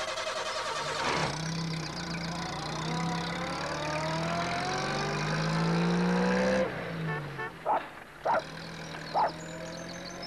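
Small van engine pulling away and revving, its pitch rising steadily, then winding down suddenly about two-thirds through and giving three sharp pops near the end as it splutters.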